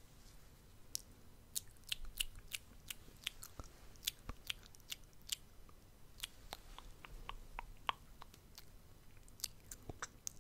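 Close-miked ASMR mouth sounds: quick, irregular clicks and pops of lips and tongue, several a second.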